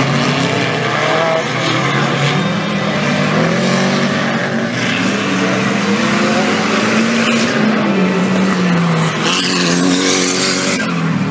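4WD off-road race vehicle engines running hard, their pitch rising and falling as they rev through the course. A loud hiss comes in about nine seconds in and lasts over a second.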